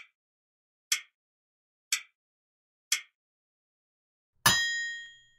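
Quiz countdown timer sound effect: four short ticks, one each second, then a louder bell ding about four and a half seconds in that rings out for most of a second, marking the end of the four seconds allowed for the answer.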